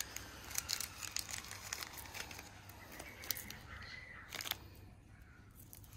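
A small clear plastic zip bag of metal screws being handled and opened: the plastic crinkles and the screws click and rattle as they are tipped into a palm, in a string of short clicks, busiest about half a second in and again just after four seconds.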